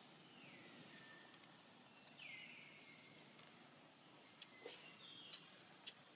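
Faint outdoor quiet with two drawn-out whistled animal calls, about two seconds apart. Each slides down in pitch and then holds steady. A few short sharp chirps or clicks follow near the end.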